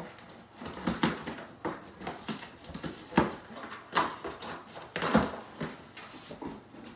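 A dog rooting in a small cardboard box, shoving and tugging at it: irregular knocks, scrapes and rustles of cardboard, with the sharpest knock a little after three seconds in.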